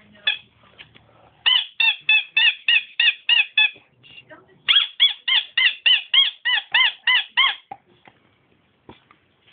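Two fast runs of high squeaks, about four a second, from a rubber squeaky toy squeezed in a dog's mouth as it chews. The first run starts about a second and a half in and the second about a second after the first stops. Each squeak rises and falls in pitch.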